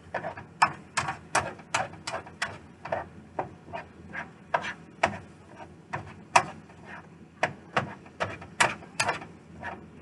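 A utensil scraping and tapping against a nonstick skillet, about two to three strokes a second, as ground beef is stirred and broken up while it browns.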